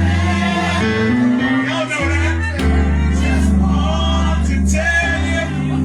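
Live gospel music: a singing voice over sustained low instrumental chords.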